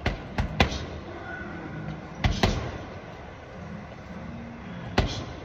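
Gloved punches landing on a hanging heavy bag: three hits in the first second, two more about two seconds in, and a single hit near the end.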